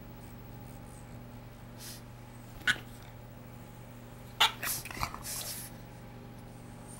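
Boston Terrier making short high-pitched whining vocal sounds: a single sharp squeal about three seconds in, then a cluster of whines and snuffling breaths about a second and a half later.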